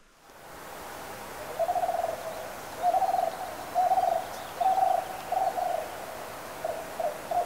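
An animal, most likely a bird, calling repeatedly: a series of short, low, rough-edged hooting notes about once a second, starting about a second and a half in, over a steady background hiss.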